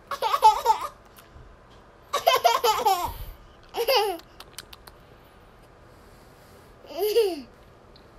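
A toddler girl laughing in short high-pitched bouts, four times, with quiet pauses between.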